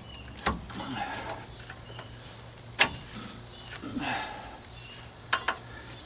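Crowbar prying the front brake caliper off the disc on a 2002 Nissan Frontier, giving four sharp knocks: one about half a second in, one near three seconds, and two in quick succession after five seconds.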